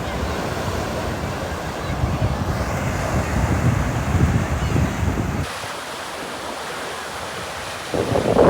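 Ocean surf washing onto a beach, with wind buffeting the microphone. The low rumble drops away about halfway through, then returns louder near the end.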